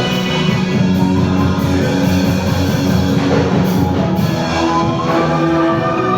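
Live church band music with drums, guitar and held keyboard or organ chords.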